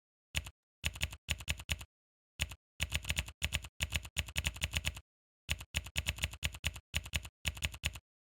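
Computer keyboard typing: rapid key clicks in short bursts with dead-silent gaps between them, stopping just before the end.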